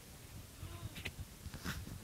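Low rumble of a car driving slowly, heard from inside the cabin, with a few sharp clicks and knocks about a second in and near the end.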